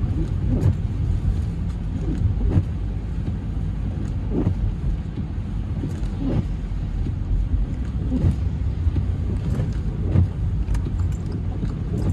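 Car driving on icy, slushy, wet roads, heard from inside the cabin: a steady low rumble of tyres and engine, with a short swish recurring about every two seconds.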